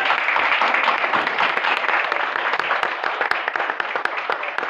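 Audience applauding, a dense patter of hand claps that tapers off slightly near the end.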